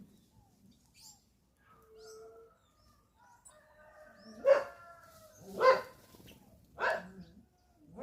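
A dog barks three times, a little over a second apart, over faint chirps of small birds.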